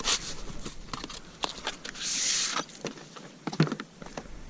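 Packaging being handled: scattered light clicks and knocks, with a brief rustling crinkle about two seconds in.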